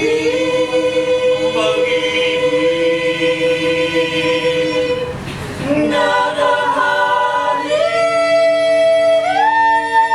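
Mixed choir singing a cappella, holding long sustained chords. A short break comes about halfway, then the voices resume and the chord steps upward twice near the end.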